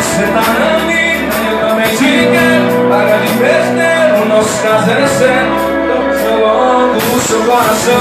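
Live band music played loud over a PA system: a mostly instrumental passage with sustained melody lines over a steady drum beat.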